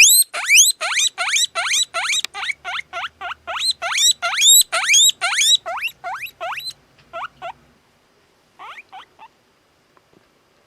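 Young satin guinea pig boar wheeking: a rapid series of rising whistled squeals, about three a second, that breaks off about seven seconds in, with a short burst of a few more near nine seconds.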